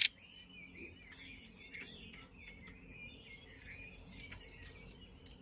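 Female Chinese hwamei (Garrulax canorus) calling: a continuous run of varied twittering chirps, with short sharp notes mixed in.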